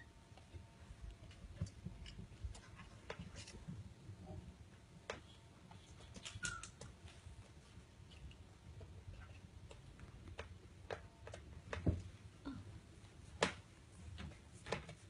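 Handling noise from a phone microphone pressed against a cat's fur and fingers: scattered soft clicks and rustles over a low rumble, with two sharper clicks near the end.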